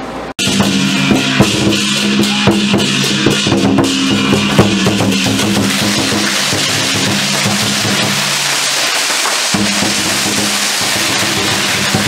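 Street procession percussion: a large drum beaten hard among other percussion, over a steady held note that breaks off for about a second near the end.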